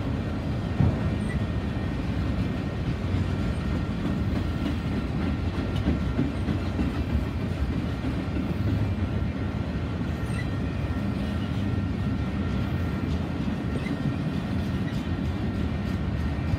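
Enclosed autorack freight cars of a long auto train rolling past at steady speed: a constant low rumble of steel wheels on rail, with scattered faint clicks.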